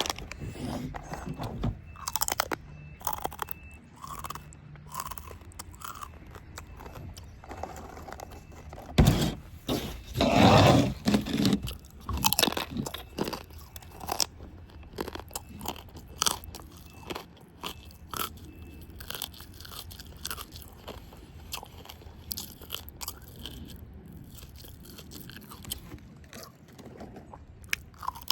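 Yuca chips being bitten and chewed: crisp crunches at irregular intervals, with a louder stretch of crunching about ten seconds in.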